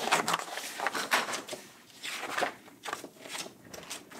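Paper rustling as the pages of a picture book are turned and handled: a run of irregular soft rustles and flicks.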